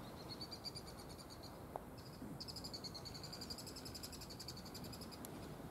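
A cricket chirping in fast, evenly pulsed high-pitched trills: a short trill, a pause of under a second, then a longer one of about three seconds, over a faint steady outdoor hiss.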